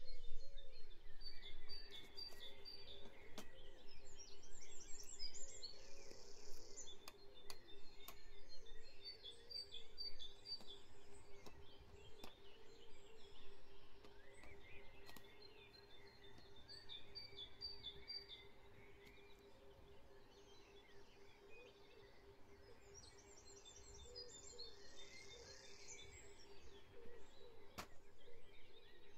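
Dawn chorus recording of many songbirds chirping and trilling, with a steady low hum beneath and a few faint clicks.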